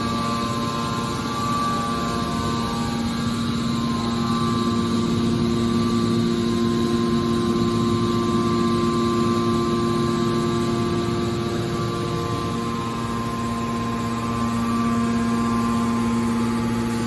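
Hydraulic power unit of a scrap metal baler shear running with a steady hum, with no shearing or crushing impacts.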